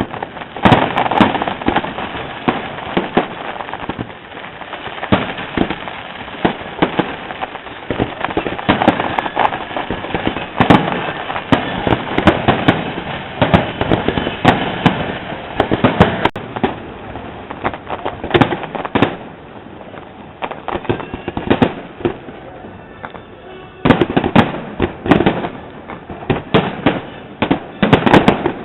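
Fireworks display: a continuous barrage of sharp bangs and crackles from bursting shells. It thins out for a few seconds past the middle, then a fresh rapid flurry of bangs comes near the end.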